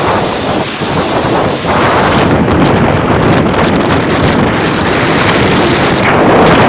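Storm wind buffeting the microphone: a loud, continuous rushing roar that changes in character about two seconds in.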